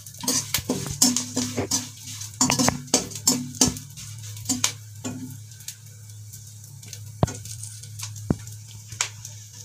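A metal spoon scraping and clinking against an aluminium kadhai as melon seeds are stirred and dry-roasted, the seeds rattling across the pan. The stirring is busy for the first few seconds, then thins to a few sharp, ringing metal taps.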